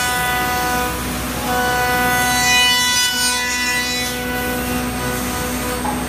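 CNC router milling a wooden air-rifle stock. The spindle gives a steady whine, and the cutting noise swells and fades twice as the bit sweeps across the wood.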